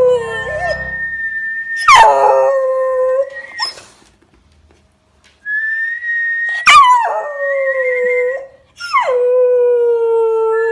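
A dog howling in about four long howls. Each starts high and slides down to a long held lower note, with a short quiet pause about midway. A steady high whistling tone sounds along with the howls.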